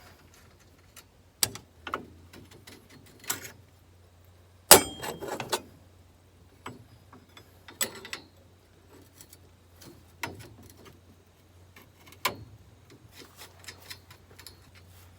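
Metal tools and parts clinking and knocking as a new blade is fitted on a combine head: scattered sharp clicks and knocks, the loudest about five seconds in, over a faint steady low hum.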